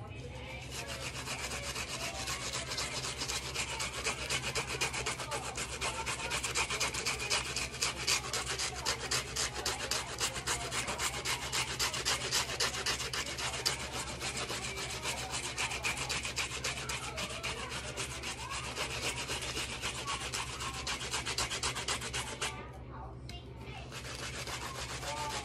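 Red onion being grated on a handheld grater: rapid, continuous scraping strokes, with a short pause near the end before the grating starts again.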